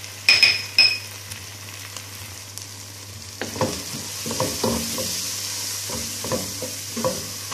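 Chopped tomato, onion, herbs and spices sizzling in a non-stick frying pan. Two short ringing clinks come near the start; from about three seconds in, a wooden spatula scrapes and stirs the mixture in repeated strokes while the sizzle grows louder.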